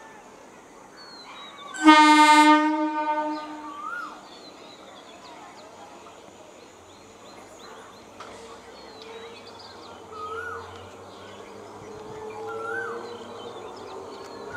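Electric multiple-unit local train's horn sounding one long blast about two seconds in, lasting about two seconds, as the train approaches. After it, the train's quieter running sound with a faint low rising tone near the end.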